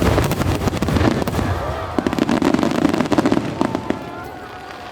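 Fireworks going off in a dense, rapid volley of bangs and crackle that dies away about four seconds in, with crowd voices under it.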